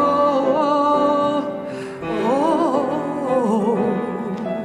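A woman sings a wordless held note with vibrato, then a wavering run of ornamented notes about two seconds in. Piano accompaniment plays beneath the voice.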